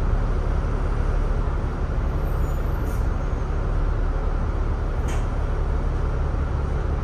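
Diesel engine of a double-decker bus running with a steady low rumble, heard from inside the bus, with two short hisses about three and five seconds in.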